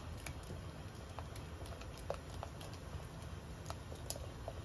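Barbecue sauce boiling in a saucepan while being stirred, with small irregular pops and clicks, several a second, as bubbles burst in the thickening sauce. A steady low hum runs underneath.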